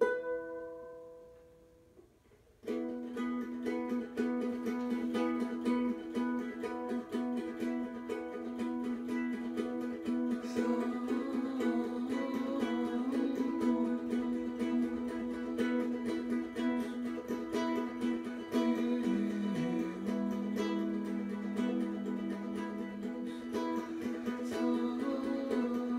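Instrumental music on a plucked string instrument. A chord rings and fades at the start, then after about two seconds of quiet, quick plucked playing starts and carries on.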